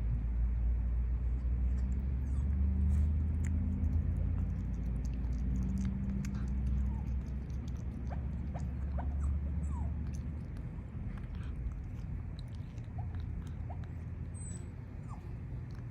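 A cat eating, with small scattered clicks of chewing, over a steady low hum that fades about two thirds of the way through.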